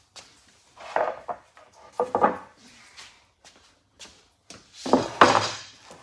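Wooden boards being handled and shifted on a workbench: a few separate knocks and clatters, wood against wood, the loudest near the end.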